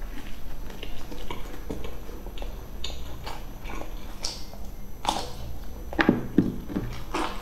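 Close-up mouth sounds of eating: chewing with wet lip smacks and clicks, louder smacks about five seconds in and again around six to seven seconds in.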